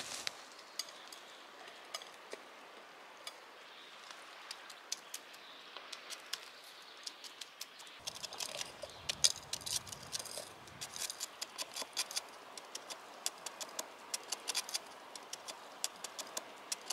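Irregular sharp clicks and scrapes of a knife blade working lumps of hardened pine resin off a pine trunk's bark and into a metal pot. The clicks are sparse at first and come thickly from about halfway through.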